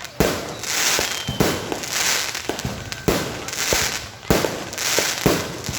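Aerial fireworks bursting in quick succession: a sharp bang every half second to a second, each trailed by a crackling shower.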